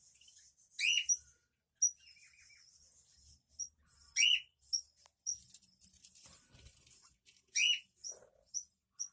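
A colony of budgerigars chirping and chattering continuously, with three louder, sharp calls: about a second in, near the middle and near the end.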